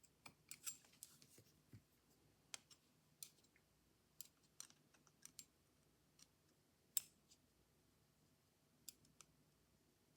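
Light, irregular clicks and taps of small metal parts and a screwdriver being handled on a workbench, the loudest about seven seconds in, over a faint low hum.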